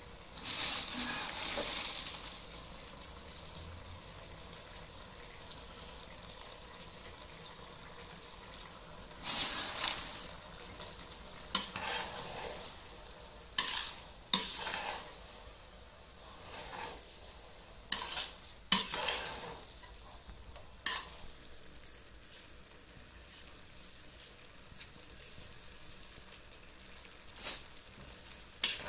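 A metal ladle stirring grated carrots for gajar ka halwa in a large aluminium pot, with sharp knocks and scrapes of the ladle against the pot. A faint steady sizzle from the cooking carrots runs underneath, and two longer rushes of noise come near the start and about ten seconds in.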